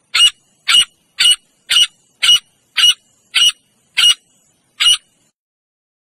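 Male grey francolin calling: a series of nine short, sharp, high-pitched calls at an even pace of about two a second, stopping about five seconds in.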